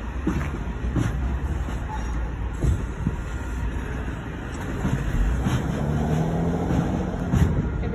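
Alfa Romeo Giulia sedan pulling away and driving past at low speed over a steady low rumble. Its engine note builds and rises slightly about five seconds in as it accelerates by.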